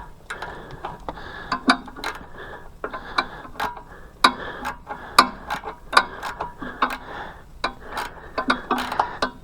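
Irregular clicks and light metal scraping of a hand tool tightening a fitting on a gasoline pressure washer's engine, to stop a fuel leak.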